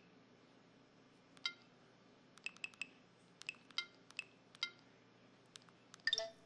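Samsung SCH-V330 mobile phone giving short, high keypad beeps as its buttons are pressed: about nine brief tones at uneven intervals, with a quicker cluster near the end.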